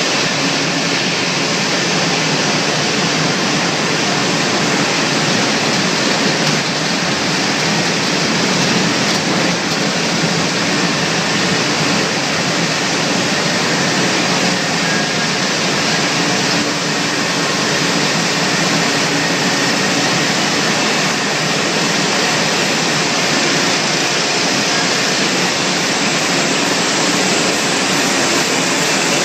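Potato harvest conveyor running, a steady, even noise of machinery and potatoes pouring along the belt, with no breaks.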